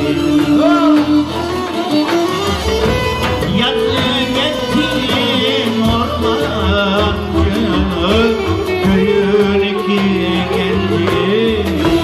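Turkish folk song in the dağlı style performed live: a man sings with a wavering, ornamented melody over violins and plucked long-necked lutes.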